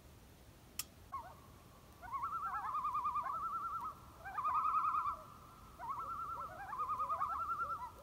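Common loon tremolo calls: a fast, wavering laugh in three bouts, starting about two seconds in, each opening with short upward slurs. A single sharp click comes just before.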